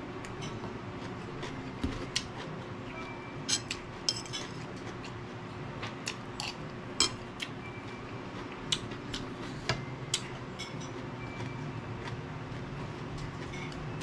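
Eating utensils clinking against dishware in irregular light clicks, some leaving a short ring, over a steady low hum.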